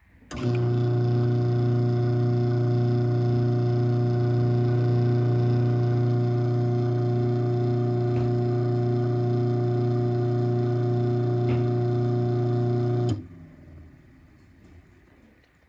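Craftsman half-horsepower chain-drive garage door opener running through a full cycle, raising the door: a steady motor hum with a chain-drive whir, holding one pitch for about 13 seconds. It starts a moment in and stops abruptly at the open limit.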